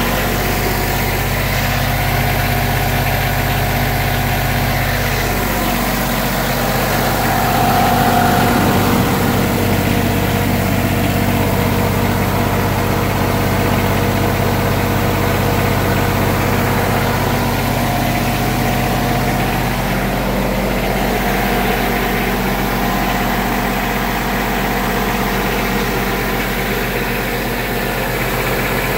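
Wacker Neuson light tower generator's engine running at a steady, constant speed, an even hum that holds its pitch throughout.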